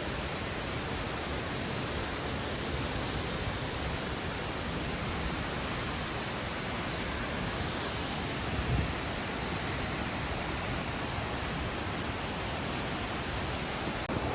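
Steady, unbroken rushing of Wallaman Falls, a 269-metre single-drop waterfall, pouring into its pool, with a brief low bump about nine seconds in.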